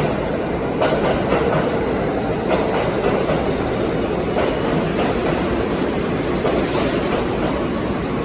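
New York City Subway 6 train running on its tracks: a steady rumble with scattered clicks of the wheels over rail joints, and a short hiss about six and a half seconds in.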